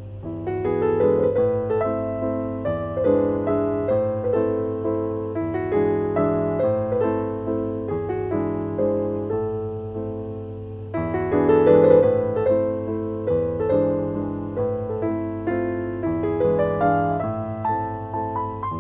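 Gentle piano music, a flowing run of notes that grows louder about eleven seconds in.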